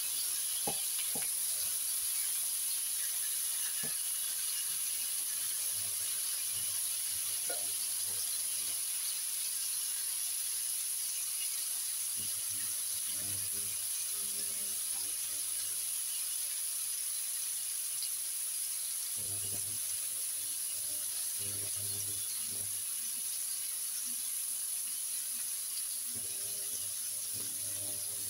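Bacon frying in a pan, a steady sizzle, with a few light clicks of utensils in the first several seconds.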